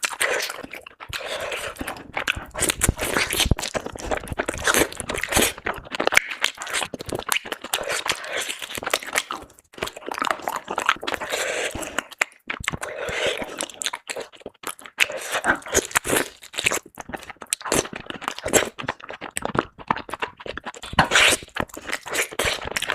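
Close-up crunching and chewing of crisp food, bite after bite, in dense crackling bouts with short pauses between.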